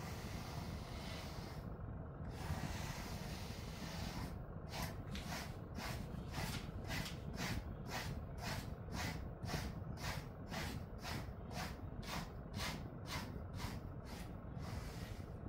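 Pet grooming brush swishing through a dog's thick coat in quick, even strokes, about two a second, starting about four seconds in and stopping near the end.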